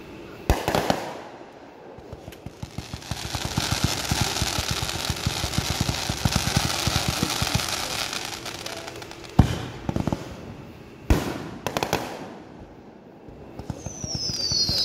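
Consumer fireworks going off: a sharp bang, then several seconds of rapid crackling and hissing as a firework shoots sparks upward, followed by two more loud bangs. Near the end a high whistle slides down in pitch.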